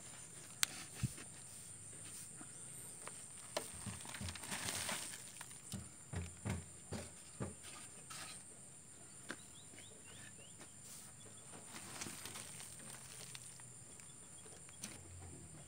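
Faint footsteps and handling rustle as a basin is carried, with a run of soft thumps in the middle, over a steady high insect drone.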